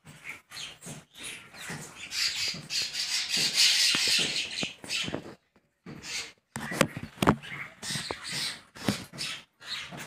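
A flock of mynas chattering and calling together, densest in the first half, with a few short sharp clicks in the second half.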